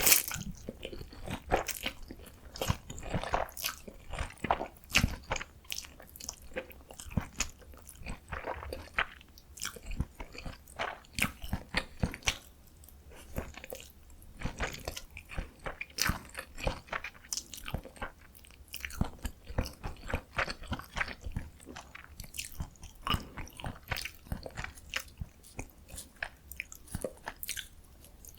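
Close-miked chewing of cold bibim noodles: a steady run of quick, wet mouth clicks and smacks.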